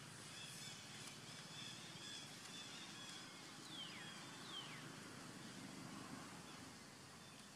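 Faint outdoor forest ambience with a faint steady high tone, and two quick falling whistled calls about halfway through.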